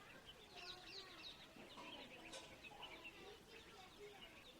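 Faint outdoor ambience of distant children's voices mixed with many small birds chirping.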